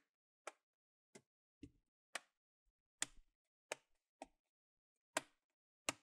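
Plastic snap clips of an Acer Aspire ES 14 laptop's palm-rest cover clicking into the bottom case as the two halves are pinched together, about nine sharp clicks at irregular intervals.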